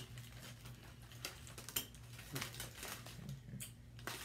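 Aluminium foil crinkling and crackling as it is peeled by hand off grilled turkey legs: a run of short, irregular crackles, with sharper ones at the start and about two seconds in, over a low steady hum.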